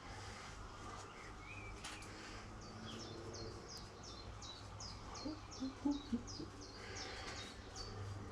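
A bird calling a rapid, even series of short high chirps, about three a second, over a steady low hum, with a few short knocks in the middle.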